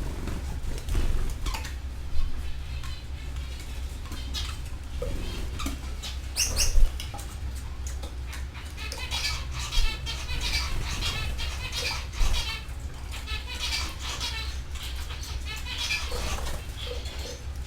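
Canaries chirping and twittering in an aviary, with scattered sharp clicks and wing flutters and a steady low hum underneath; the loudest click comes about seven seconds in.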